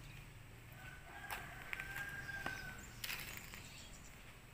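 Faint bird call: one steady high note held for about two seconds, with a few light clicks around it.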